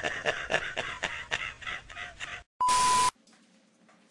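A man laughing hard in quick repeated bursts that die away. A little past two and a half seconds in comes a short, steady beep.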